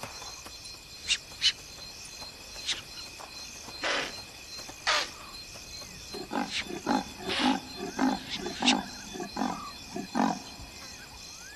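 Male leopard giving its sawing call: a rapid run of about a dozen grunts, about three a second, in the second half, over steady cricket and insect chirping. A few sharp clicks come in the first seconds.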